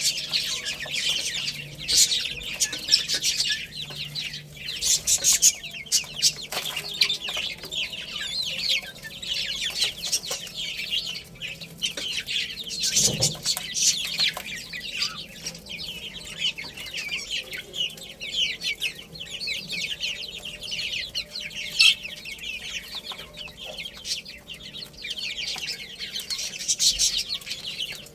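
Many baby chicks peeping continuously, a dense chatter of short, high chirps, with a brief thump about halfway through.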